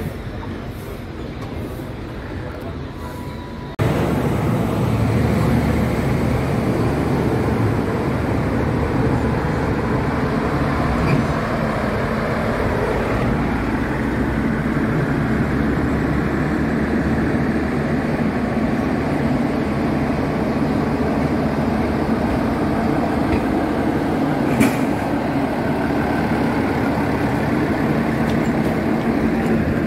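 Passenger train running, a steady rumble with a low hum heard from on board, which jumps suddenly louder about four seconds in. A single sharp knock comes near the end.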